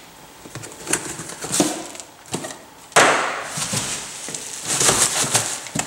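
Cardboard parts boxes being handled on a steel bench: a few knocks and scrapes, then about three seconds in a sudden loud rustle followed by plastic packaging and bubble wrap crinkling.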